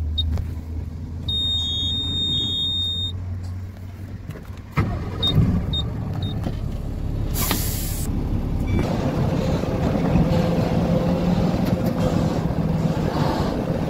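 Heavy truck's diesel engine running, heard from inside the cab, with a dashboard warning buzzer beeping in the first few seconds. About seven seconds in comes a short, loud hiss of compressed air, and the engine then runs steadily as the truck moves off.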